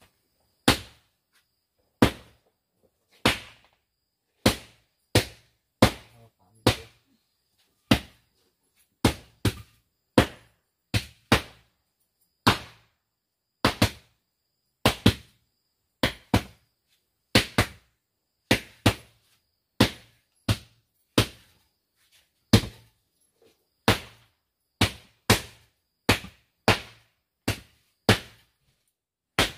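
A piece of bamboo pounding the packed earth floor in a long run of sharp knocks, roughly one or two a second at an uneven pace.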